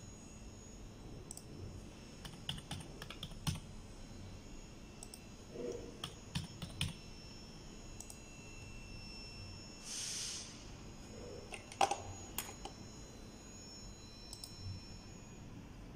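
Computer keyboard typing in irregular runs of keystrokes as login details are entered, with a few sharper clicks around twelve seconds in and a brief hiss about ten seconds in.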